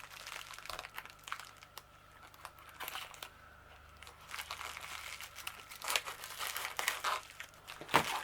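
Packaging crinkling and rustling as a small parcel is opened by hand, with scattered sharp crackles that get busier in the last couple of seconds.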